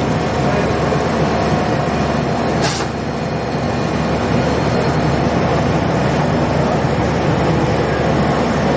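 Smoked-salmon slicing machine running steadily with a loud mechanical hum. A brief sharp sound cuts through about three seconds in.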